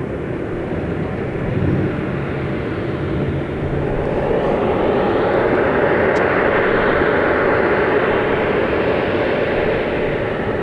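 Jet airliner engines running with a steady rushing noise. The noise swells and grows brighter about four seconds in, then holds.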